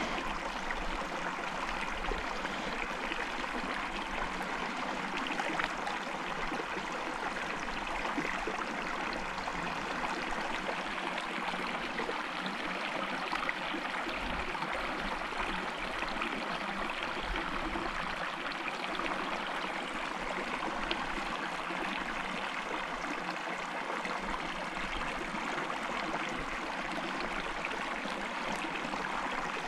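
Shallow creek water running over a rocky bed: a steady, even rushing that holds unchanged.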